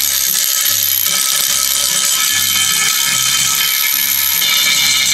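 Cordless ratchet running continuously with a steady high-pitched motor whine, spinning spark plugs out of a cylinder head.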